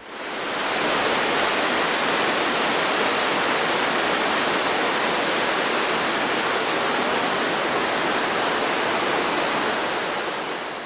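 Waterfall cascading over rock ledges: a steady, loud rush of falling water that fades in at the start and fades out near the end.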